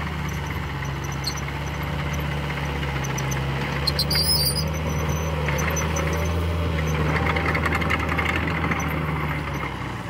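Small crawler bulldozer's diesel engine running steadily under load as it pushes a heap of dirt, with a brief high squeal about four seconds in and rattling, crunching noise later on.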